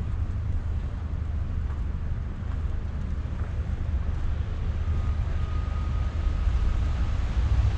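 Steady low rumble of wind buffeting the microphone, mixed with city traffic. A faint thin whine comes in about five seconds in and lasts about two seconds.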